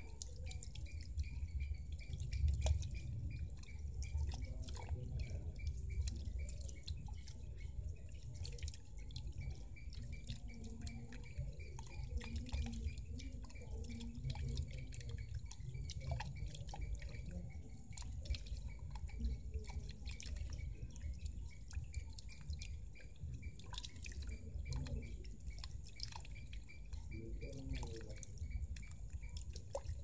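Small solar-powered fountain jet falling into a shallow pool, with a continuous patter of splashing drips over a steady low rumble.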